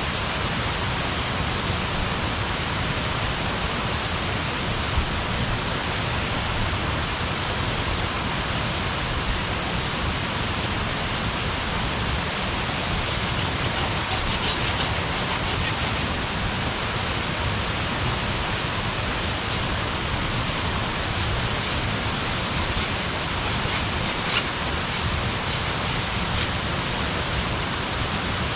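Wood campfire burning, with scattered crackles and snaps, then one sharper pop late on, over a steady rushing hiss.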